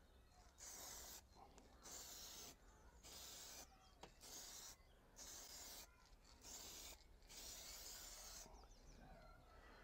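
Aerosol spray-paint can spraying satin black in a run of about seven short, faint hisses with brief pauses between them, the last one longer.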